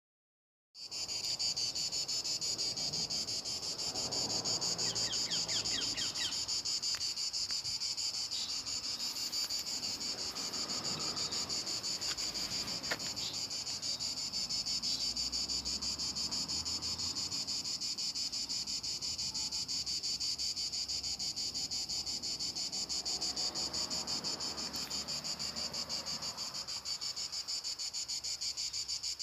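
Insects chirring: a steady, high-pitched trill of very fast pulses that starts about a second in and keeps on without a break.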